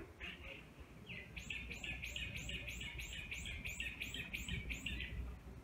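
A bird calling in a quick, even series of about a dozen short high notes, about three a second, after a single call near the start.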